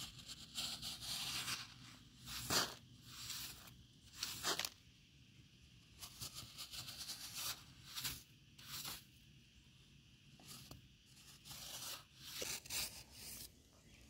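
Metal spatula blade slicing and scraping through a molded cylinder of packed sand: a run of short, irregular, gritty scraping and crunching strokes as the sand is cut and crumbles.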